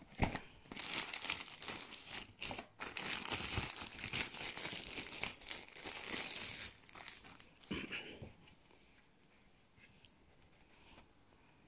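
Plastic packaging wrap crinkling and rustling as a dash cam is pulled out of its bag. The rustling goes on for about seven seconds, with one more short rustle about eight seconds in, then it stops.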